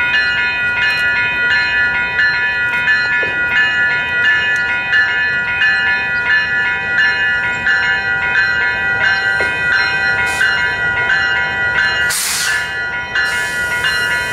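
A railroad warning bell ringing in quick, even strokes as a Canadian Pacific diesel locomotive leads a train slowly past. A brief hiss comes near the end.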